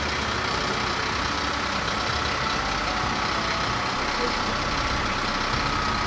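An engine running steadily, with a faint high steady whine above it.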